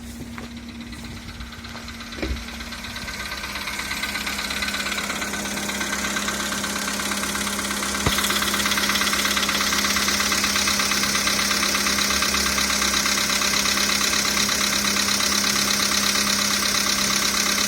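Skoda Rapid's 1.6-litre CFNA four-cylinder petrol engine idling with a knock, the engine knock the title names. The sound grows louder over the first eight seconds, steps up sharply about eight seconds in, and then stays steady.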